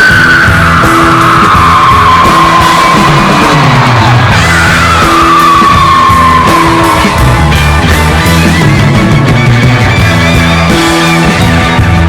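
Loud rock music with electric guitar; a high note slides slowly downward twice.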